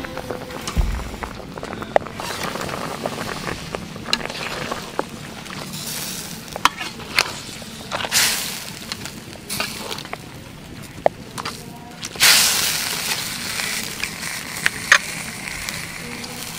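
Bulus and catfish sizzling in a wok over a fire, with occasional sharp clicks of a utensil stirring. The hiss swells louder about eight seconds in and again around twelve seconds in.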